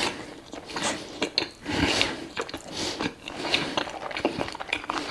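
Close-miked eating sounds: a string of irregular small clicks and rustles from chewing and from a knife and fork tapping and scraping on a plate.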